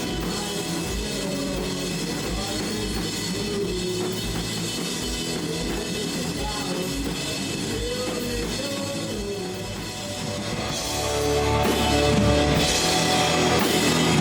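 Rock band music: drum kit with a steady kick-drum beat under guitar, getting fuller and louder about eleven seconds in.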